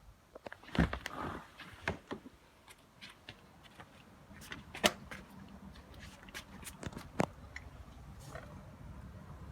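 Scattered sharp clicks and taps at an uneven pace, the loudest about a second in and near five seconds in, from a cat eating from a dish.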